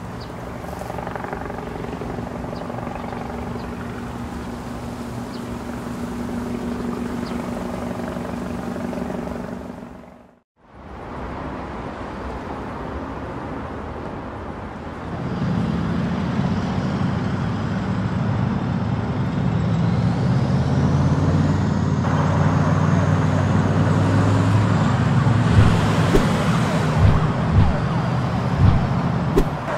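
Car engine sound effect running steadily. It drops out briefly about ten seconds in, then comes back louder from about fifteen seconds in, with a faint rising whine a little after twenty seconds and a few sharp knocks near the end.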